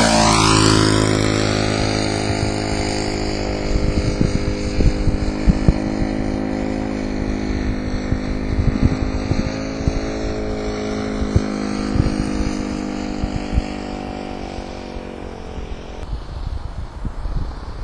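Radio-controlled model airplane engine running at a steady, high note as the plane passes close by at the start, its pitch dropping slightly, then droning on as it flies and fading in the last few seconds.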